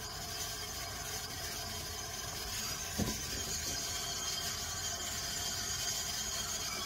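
Kitchen tap running steadily, filling the sink with water, with a single short knock about three seconds in.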